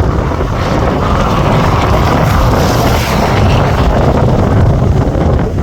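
Airliner on landing approach passing close, a loud rush of jet engine noise with no clear tone, swelling in the middle; wind buffets the microphone throughout.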